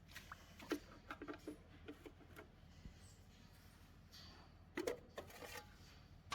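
Faint clicks and knocks from a cattle water drinker being handled, its cover and float worked on by hand: a cluster of small knocks about a second in and another about five seconds in.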